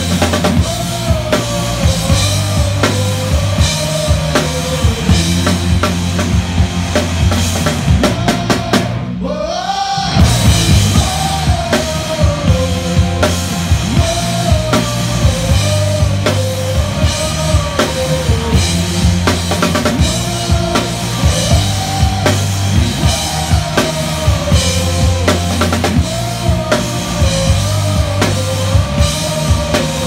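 Live band playing a song, with a rock drum kit (kick, snare, cymbals) driving a steady beat under a bass line and a wavering melody. About nine seconds in the music briefly drops away, then comes back in on a loud hit.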